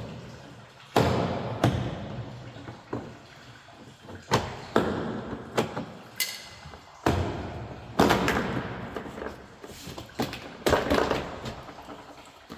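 A series of sharp knocks and thuds from the car door being handled, about a dozen spaced irregularly, each dying away over about a second.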